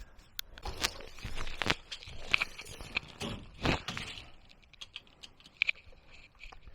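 Scattered knocks, clicks and scuffs of someone moving about and handling a wooden board.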